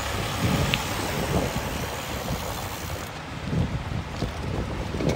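Wind buffeting the microphone over the low rumble of dump trucks and a wheel loader running close by.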